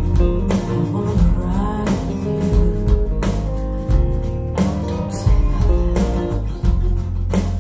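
A song with guitar, bass and a steady drum beat, played back through CSS Criton 1TDX two-way bookshelf speakers as a listening demo.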